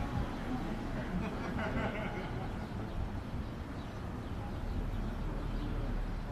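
Faint, indistinct talking from a small group of people standing a little way off, over a steady low outdoor rumble.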